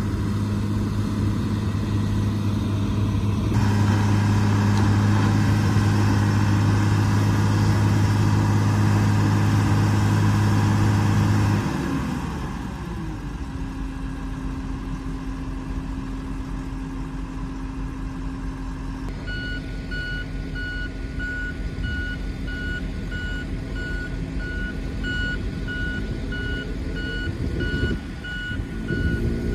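Diesel road rollers working: a steady low engine drone that drops away about twelve seconds in to a quieter, lower engine hum. From about nineteen seconds a reversing alarm beeps over it again and again.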